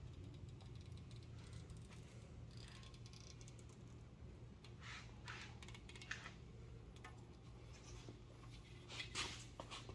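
Faint, short scratchy crackles of 1/16-inch fineline masking tape being pulled and pressed down along the fender, coming a few times and clustered near the end, over a steady low hum.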